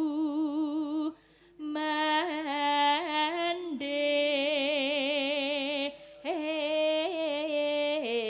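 A sinden singing a slow Javanese song into a microphone, holding long notes with a wide vibrato. She pauses for breath about a second in and again about six seconds in.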